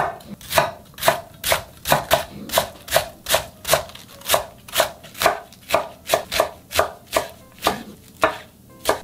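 Kitchen knife slicing napa cabbage into thin strips on a wooden cutting board, the blade knocking the board in a steady rhythm of nearly three strokes a second.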